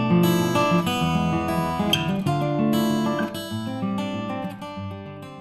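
Outro music: strummed acoustic guitar chords, fading out near the end.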